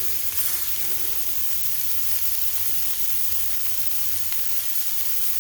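Balls of ground beef sizzling steadily on a hot Lodge cast iron griddle.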